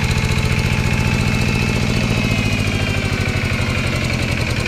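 Yanmar SS80 single-cylinder diesel engine idling steadily with a regular, even firing beat and a faint whine over it. The owner says it runs very well and solidly.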